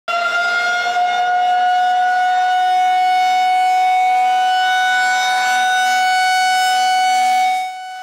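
Tornado warning siren with a rotating horn, sounding one loud, steady tone. The pitch rises slightly at first and then holds, and the sound falls away just before the end.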